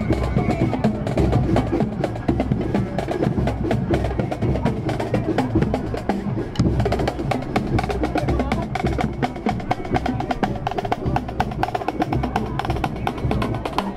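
Marching band playing: snare drums keep a quick, dense beat over a bass drum, with brass.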